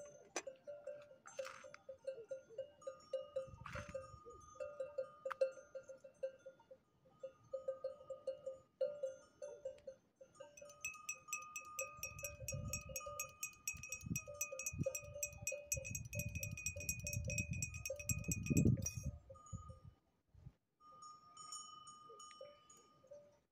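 Bells on grazing sheep clinking irregularly at a few different pitches. About halfway through, one bell rings fast and without a break for some eight seconds, with a low rumble under it, then stops.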